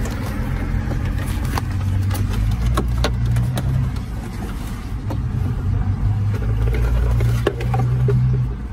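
A car engine idling, heard as a steady low hum inside the cabin. Scattered light clicks of plastic trim and wiring connectors being handled come through now and then.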